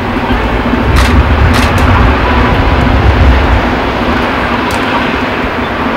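Slow-revving diesel engine (a 'langzaamloper') of an inland motor cargo barge, running steadily under way with a low rumble and a faint steady hum. A few short sharp clicks sound over it.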